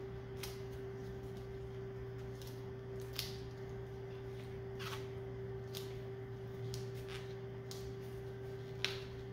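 Electrical tape being pulled off the roll and wrapped around a high-voltage wire splice: scattered short crackles and clicks, the loudest near the end, over a steady low background hum.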